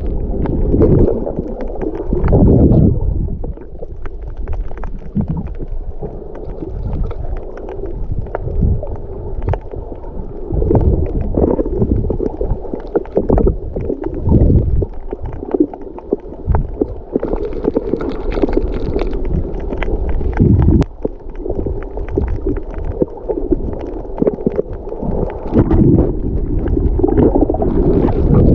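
Muffled water sloshing and gurgling around a GoPro in its waterproof housing while snorkeling, a dull, uneven rumble with frequent bumps and surges.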